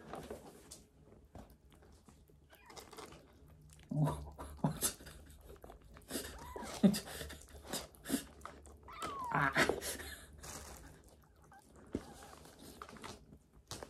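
Young kittens eating wet food from bowls: scattered wet smacking and chewing clicks, with a couple of short, squeaky calls that slide down in pitch around the middle.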